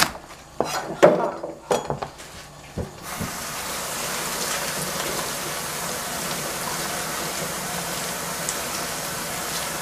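A few knife chops on a plastic cutting board, then a kitchen tap running steadily from about three seconds in.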